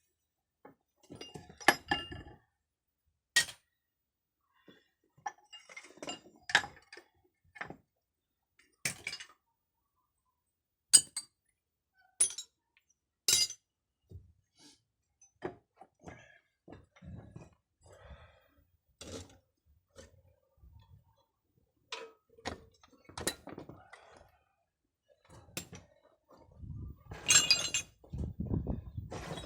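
Metal parts and hand tools being handled during hydraulic hose repair work: irregular sharp clinks and knocks, one every second or two, with a denser run of clattering near the end.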